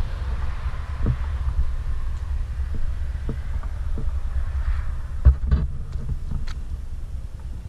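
Low rumble of wind buffeting an action camera's microphone, with soft irregular thumps of footsteps as the camera is carried across grass.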